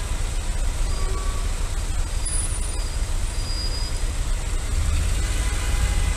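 Dense, slow-moving city traffic heard from a motorcycle filtering between queued cars and buses: a steady, deep engine rumble, with a few faint high whines now and then.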